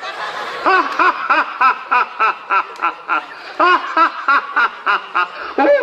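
A boy playing Ravana giving a long, rhythmic stage villain's laugh, "ha-ha-ha" at about four laughs a second, with a short break for breath partway through.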